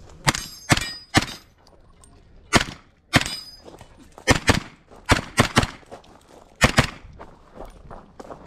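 Rapid pistol shots from a red-dot-sighted competition handgun, about a dozen sharp cracks fired mostly in quick pairs with short pauses between target groups. A brief high ring follows a couple of the shots.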